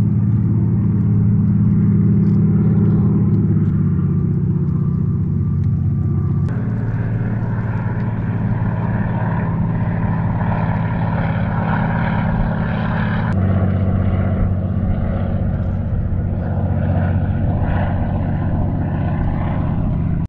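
Seaplane's propeller engine running loud and steady as the plane takes off, a low drone with several tones; the sound jumps in tone abruptly about six and about thirteen seconds in.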